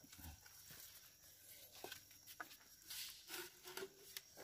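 Faint, scattered clicks, rustles and soft scrapes from a tied bundle of mud crabs being handled over wet mangrove mud.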